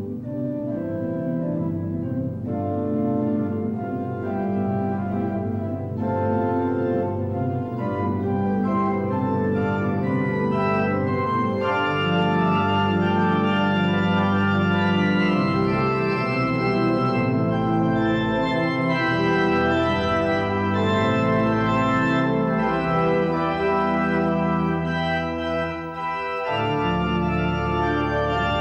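Organ music playing full, held chords that change every second or so, swelling louder over the first few seconds and dipping briefly near the end.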